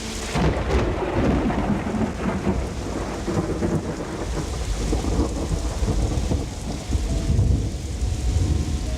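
Thunder rumbling over steady rain. The thunder breaks in suddenly just after the start, then rolls on with a deep rumble that swells again near the end.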